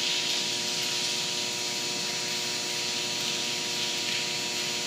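Steady hiss with an electrical hum of several steady tones underneath, unchanging throughout.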